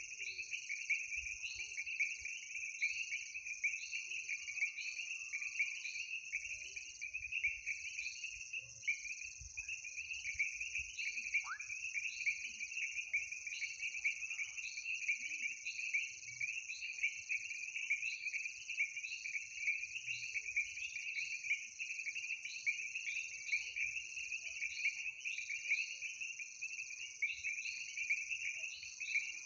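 Night chorus of calling frogs and insects: a dense, continuous high-pitched trilling with a higher layered buzz, and a short chirp repeating a little more than once a second.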